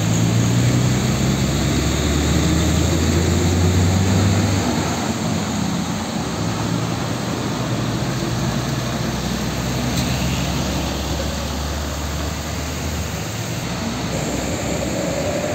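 Diesel trucks running as they drive past, a steady low engine hum over constant road noise. The engine hum dies away a couple of seconds before the end.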